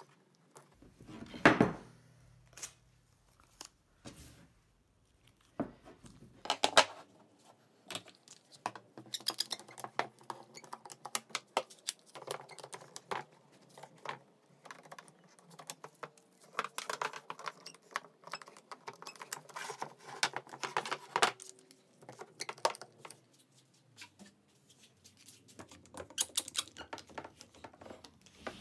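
Wooden pieces set down and knocked together on a workbench, then Quick-Grip one-handed bar clamps ratcheted tight onto a glue-up of wooden strips. There are sharp knocks about a second and a half in and near seven seconds, then runs of rapid clicking from the clamp triggers.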